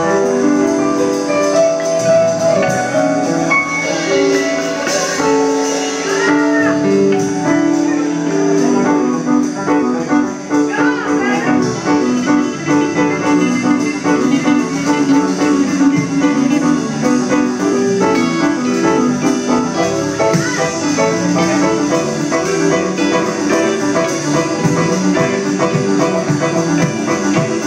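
Live band music with an electric keyboard taking a solo, playing a run of sustained notes and chords over the band.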